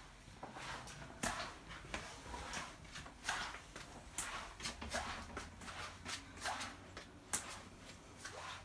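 Footsteps and irregular knocks and clatters inside a narrow railroad car, a person walking through it.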